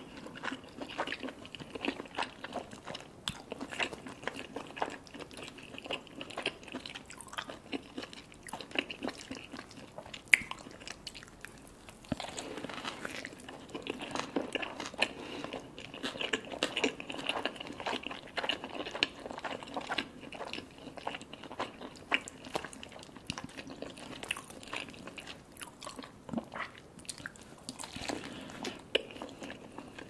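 Close-miked chewing of a burger and cheesy poutine, full of small wet mouth clicks, with one sharper click about ten seconds in.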